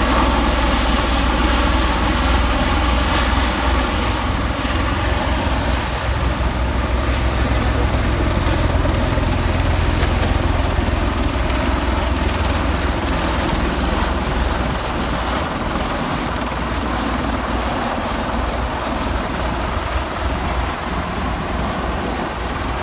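V-22 Osprey tiltrotor flying overhead with its proprotors tilted up, its twin rotors giving a loud, rapid, steady beat under engine noise. The sound fades gradually in the second half as the aircraft draw away.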